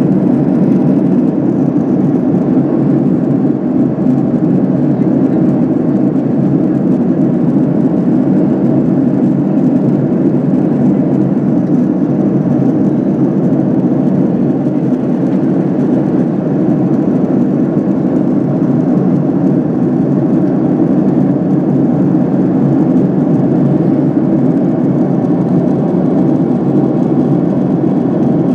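Steady cabin noise inside a Boeing 767-300 airliner in flight: an even, low drone of engines and airflow.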